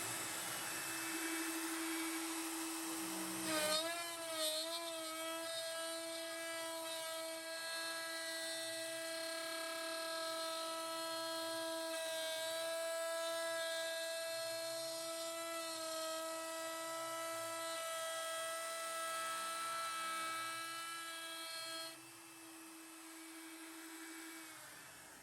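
CNC router spindle running with a steady high whine while milling a counterbore. Its pitch wavers briefly about four seconds in, and the whine thins out and stops near the end.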